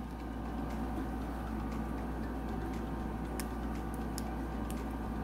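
Faint clicks and crinkles of a plastic ziplock bag being squeezed to pipe mayonnaise, a few scattered ticks over a steady low hum.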